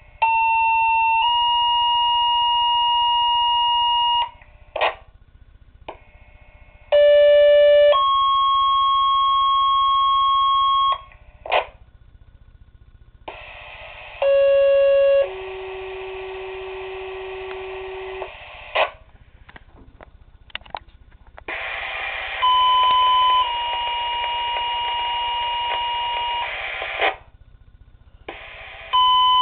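Two-tone sequential fire paging tones received over the radio. Four pages in a row each step from a short first tone to a steady second tone lasting about three seconds, a fifth begins near the end, and short squelch bursts fall between them. The fourth page comes through with a hiss of static behind it.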